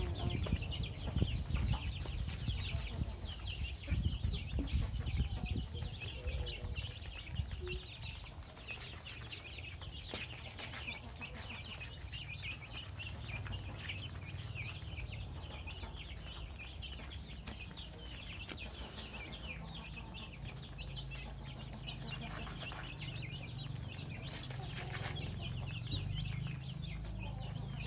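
A flock of chicks cheeping constantly in many short, high peeps as they feed, over a low rumble that is strongest in the first few seconds.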